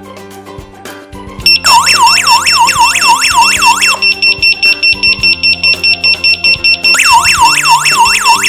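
Water leak detector's electronic alarm going off about a second and a half in: a steady high tone over a fast wailing sweep that repeats about four times a second, changing midway to rapid pulsed beeping, then back to the sweep. It is the leak alarm, signalling that water has been detected.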